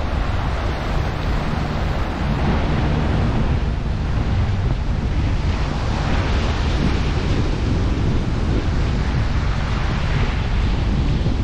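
Small waves washing up a sandy beach, with wind buffeting the microphone in a steady low rumble.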